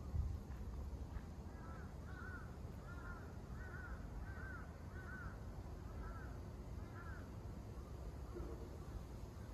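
A crow cawing: a run of about eight short caws over some six seconds, then stopping.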